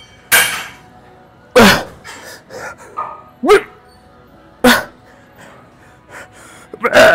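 A man grunting loudly with the effort of each repetition on a pec deck machine, five short grunts, each dropping in pitch.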